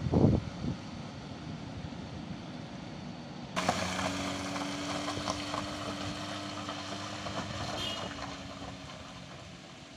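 A low rumble with wind buffeting the microphone at the start. About three and a half seconds in the sound changes abruptly to a Toyota minivan's engine humming steadily as it climbs a gravel slope, fading as it drives away.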